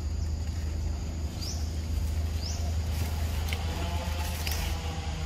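Outdoor ambience: a steady low hum, with short high rising chirps recurring every second or so and a few faint ticks.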